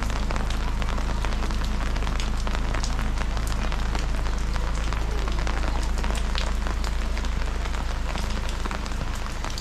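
Heavy rain falling, a dense steady hiss with many sharp individual drop hits, over a steady low rumble.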